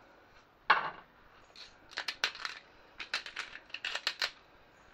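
Hand-held salt and pepper grinders being twisted, giving short runs of quick gritty clicks, with one louder knock about a second in.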